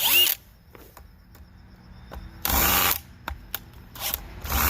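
DeWalt DCD996 cordless hammer drill run in three short trigger bursts of about half a second each, the motor whining up in pitch and dropping off each time.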